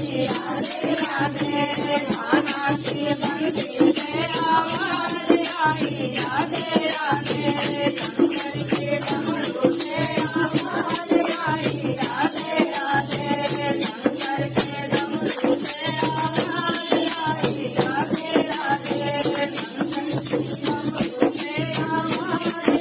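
Hindi devotional folk song (Shiva bhajan) with singing over a steady, fast rattle beat from a shaker-type percussion instrument.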